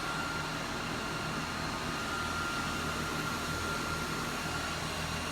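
Steady mechanical hum and hiss, like a running fan, with a faint high steady tone over it.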